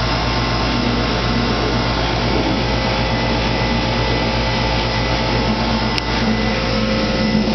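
Steady drone of a running machine: an even, loud hum with a faint high whine, with one brief click about six seconds in.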